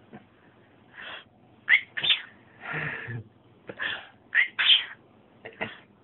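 Cockatiel making a run of short, sharp sneeze-like sounds, about eight of them, with one longer, rougher sound about halfway through.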